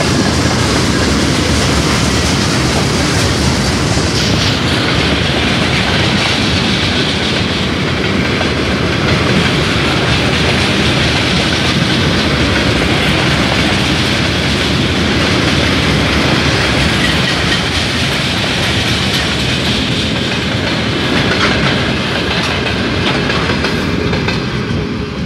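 Freight train of rail tank wagons rolling past close by: a loud, steady rumble and clatter of steel wheels on the rails.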